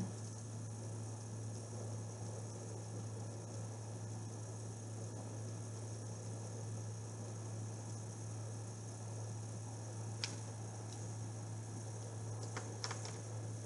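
Steady low electrical hum, with a few faint short clicks about ten seconds in and again near the end.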